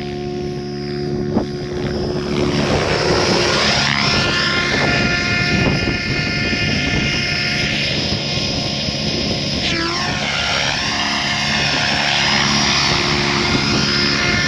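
Goosky RS7 electric RC helicopter in flight: steady whine of its motor and rotor blades. About ten seconds in, the pitch dips and rises in waves.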